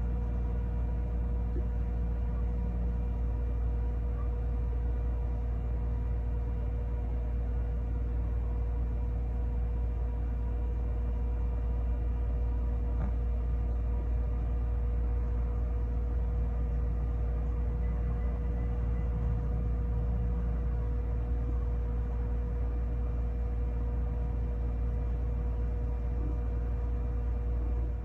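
A steady low rumble with a constant machine hum, unchanging throughout.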